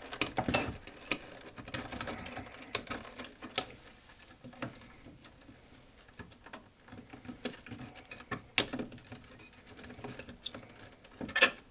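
Scattered clicks, taps and rustles of a circuit board and its wiring being handled and fitted back into a stereo receiver's metal chassis, with a louder clatter near the end.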